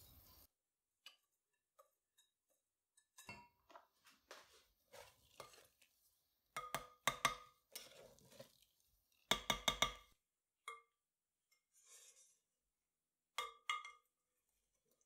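Metal wire whisk clinking against a glass mixing bowl, the glass ringing on each strike, in three quick runs of strikes with softer stirring and scraping of the batter between them.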